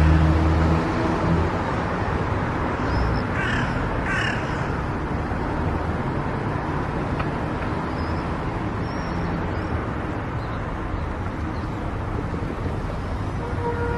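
Steady road and traffic noise, with a crow cawing twice about three to four seconds in.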